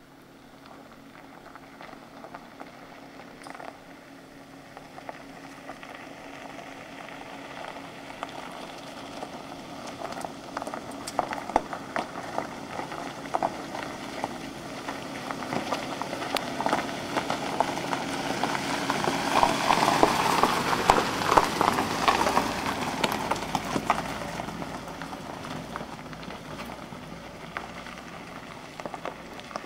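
Nissan X-Trail driving along a gravel road, its tyres crunching and crackling on the loose stones. The sound grows as the car approaches, is loudest about twenty seconds in as it passes close by, then fades as it drives away.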